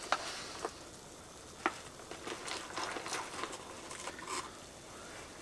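Water coming to the boil in a Jetboil Flash stove: a steady burner hiss with light bubbling and scattered small ticks and crackles.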